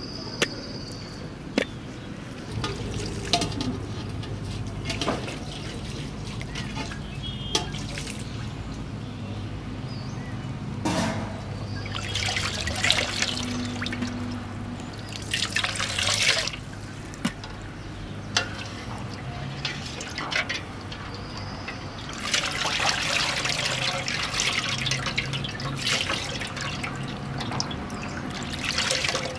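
Water splashing and trickling in an aluminium pot as raw salmon pieces are washed by hand, coming in several spells. There are a few sharp knife clicks on a wooden cutting board in the first seconds.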